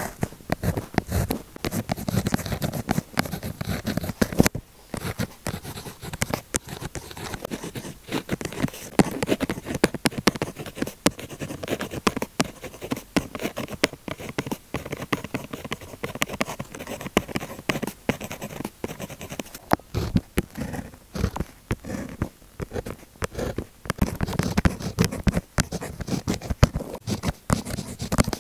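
Pilot Juice Up gel pen writing on paper, close-miked: a steady run of scratchy pen-tip strokes with short pauses between them.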